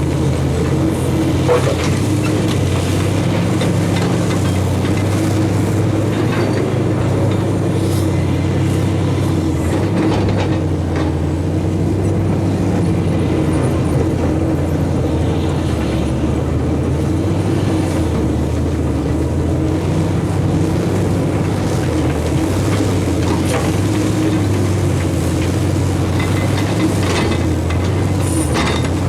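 Heavy diesel engines of a Fiat Hitachi FH450 excavator and a Perlini dump truck running under load, the engine pitch stepping up and down as the machines work. A few short knocks, such as gravel and metal striking, cut through.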